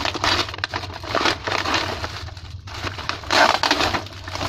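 Gift wrapping being torn open and crumpled by hand, in a series of rustling, crackling bursts, the loudest about three and a half seconds in.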